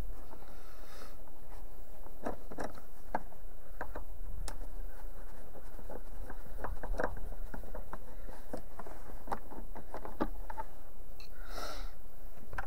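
Phillips screwdriver backing screws out of a plastic cargo shade retaining clip, then the clip worked free by hand: a string of small, irregular clicks and scrapes.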